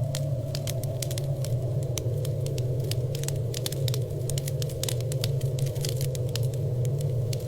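Wood fire crackling in a fireplace: many sharp, irregular pops and snaps over a steady low background.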